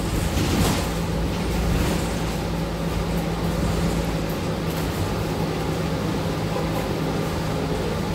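City bus interior noise heard from inside the cabin: the bus's engine and ventilation running steadily, a constant low hum over an even rushing noise.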